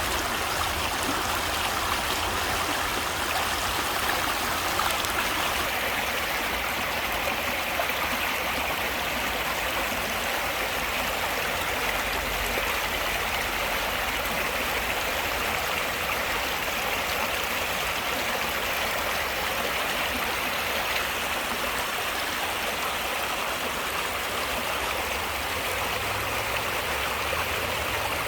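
Stream water flowing, an even, steady rushing with no breaks.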